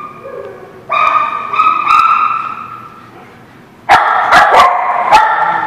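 Small dogs barking and yipping: drawn-out high-pitched yips about a second in, then a louder volley of sharp barks from about four seconds in.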